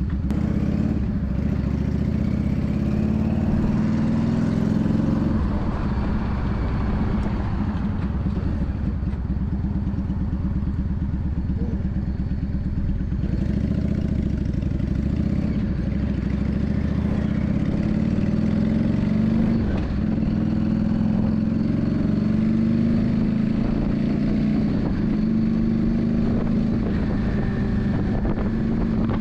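Yamaha Drag Star 400's air-cooled V-twin engine running, its pitch rising and falling several times as the revs change.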